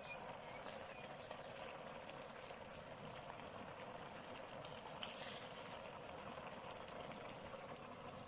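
Faint steady background hiss, with one brief rustling swish about five seconds in.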